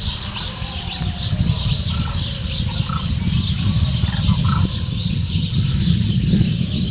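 Scattered faint calls of wetland birds at a lake, a few short squawks about 2, 3 and 4.5 seconds in, over a steady low rumble.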